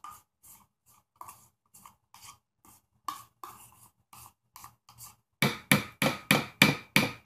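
Upturned plastic Greek yogurt cup being knocked to shake the yogurt out into a blender jar. Light, irregular taps come first, then a run of louder, regular knocks about three a second over the last two seconds.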